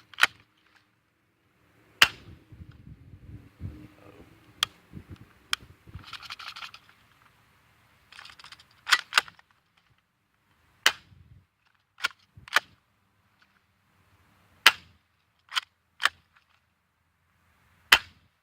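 Spring-powered Crosman PSM45 air pistol being cocked and fired again and again: about a dozen sharp snaps and clicks, some in quick pairs, with light handling rustle between them.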